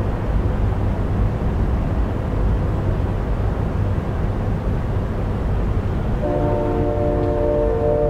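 Synthesized recreation of a distant Nathan K5H/K5L five-chime train horn, sounding one sustained chord that starts about six seconds in. Under it, a steady low rumbling background noise.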